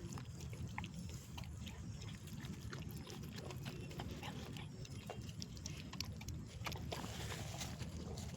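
A dog eating, its chewing heard as scattered short clicks over a steady low rumble.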